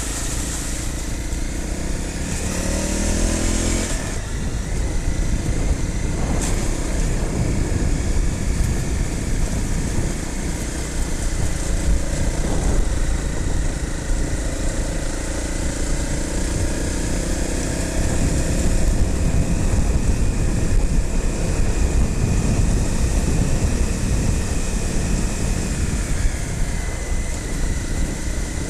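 Motorcycle engine running as it is ridden along a rough green lane, the revs rising and falling, with heavy low rumble throughout.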